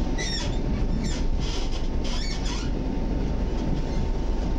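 EN57 electric multiple unit running at speed, heard from inside the carriage: a steady low rumble of wheels on the track with a faint steady hum, and a few short high hissing sounds in the first three seconds.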